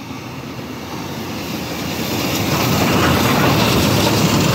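LMS Jubilee class steam locomotive 45596 Bahamas and its coaches approaching and passing close by. The train grows steadily louder over the first two and a half seconds, then stays loud as it draws level.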